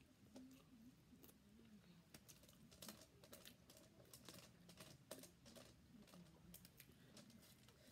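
Faint close-up eating sounds: irregular small clicks of chewing and of fingers picking through stewed conch and rice on a foil tray.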